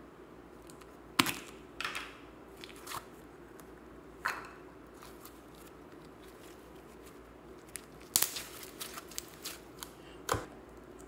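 Fluffy slime stretched and pulled apart by hand, giving scattered sharp, sticky pops and tearing snaps, with a quick cluster of them late on.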